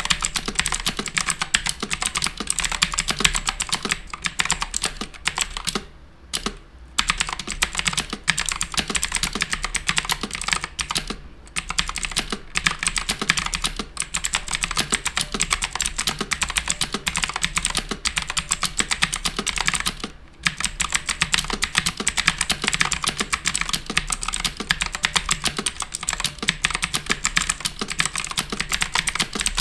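Continuous fast typing on an HP GK100 full-size mechanical keyboard with clicky blue switches. The key clicks come in a dense stream, with brief pauses about 6, 11 and 20 seconds in.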